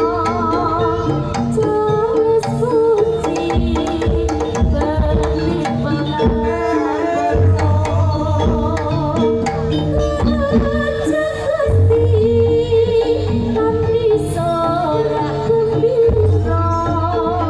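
Jaranan ensemble music: low drums under a held steady tone, with a wavering melody line above. The drums drop out for a few seconds in the middle and come back in.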